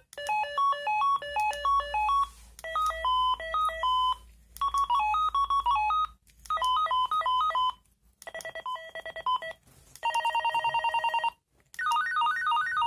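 Retevis RT36 children's walkie-talkie playing its call-tone melodies one after another from its small speaker, as the call-melody menu is stepped through: about seven short beeping electronic tunes, each a second or two long with brief pauses between, one of them a fast even trill.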